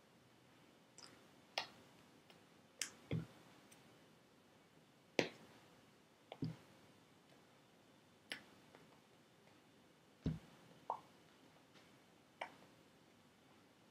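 Scattered soft clicks and a few dull thumps, about nine at uneven intervals, from a person signing in sign language without voice.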